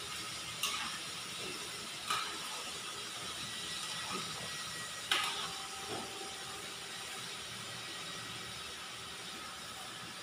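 Chicken pieces frying in oil in a wide metal pan, a steady sizzle, with a metal spatula knocking against the pan a few times, sharpest at about 5 seconds in.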